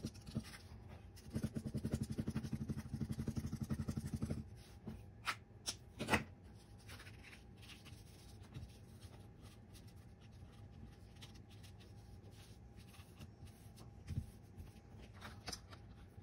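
Glue stick rubbed quickly back and forth over card stock for the first four seconds or so, with a short pause about a second in. Then a few sharp clicks and faint paper handling as the envelope is folded and pressed shut.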